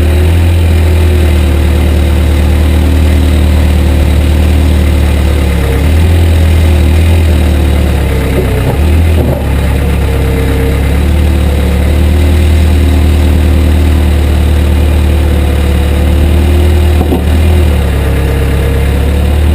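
CAT 428B backhoe's diesel engine running loud and steady while digging, its note shifting up and down a few times.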